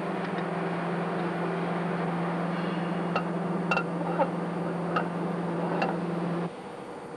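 About five light metallic clicks as the steel control-air pipe and its angle fitting are set onto the engine's starting valve, heard over a steady low hum that cuts off suddenly about six and a half seconds in.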